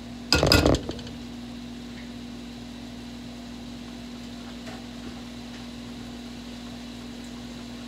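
A plastic spatula knocks against a stainless steel skillet in a short clatter just under a second in. After that there is only a steady low hum with a light hiss.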